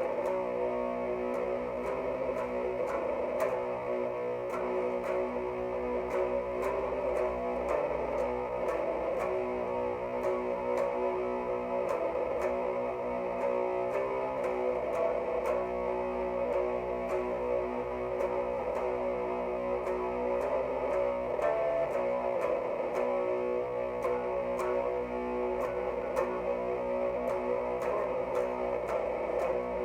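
Electric guitar, a Jackson X Series SCX 3H played through an Orange Crush Mini 3-watt amp boosted by a Boss ODB-3 overdrive pedal, playing a doom-metal part of held, ringing chords and notes that change every second or so at a steady loudness.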